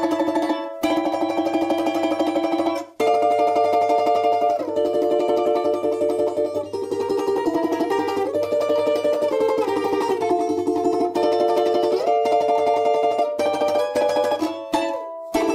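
Background music: a plucked-string instrument, mandolin- or guitar-like, playing a fast-picked melody over a steady low note. There are brief breaks about a second in and about three seconds in.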